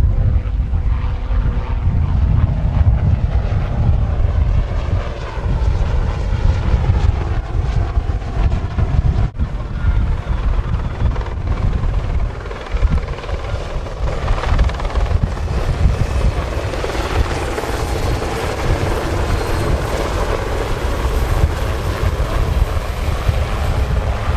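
Aircraft engine noise from an air-show display overhead, a steady roar whose pitch slowly bends and which swells from about halfway through. Heavy wind rumble on the microphone runs underneath.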